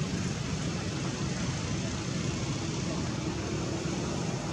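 Steady outdoor background noise: an even hiss with a low hum, like distant road traffic.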